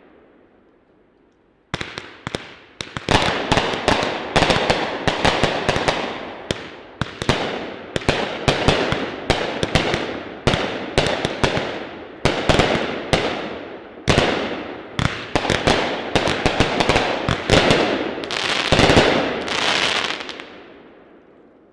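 Raccoon Fireworks 'Breakthrough' 17-shot angled 200-gram consumer cake firing: after a short quiet, shells launch and burst in rapid, overlapping reports for about eighteen seconds, then die away near the end.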